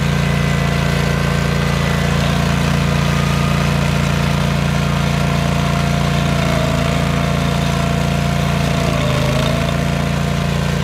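Bobcat skid-steer loader's engine running steadily at constant speed while rough grading, with a slight dip in pitch near the end.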